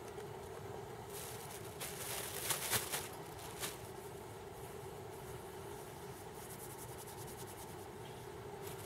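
Small gas-canister camp stove burning steadily under a pot. About two seconds in, a plastic bag crinkles for a second or two as it is handled.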